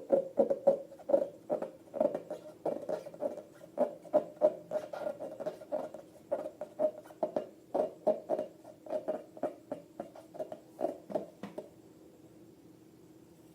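Rubbery squeaks from inflated latex balloons being rubbed and squeezed by hand, in a quick run of short squeaks about three a second that stops near the end.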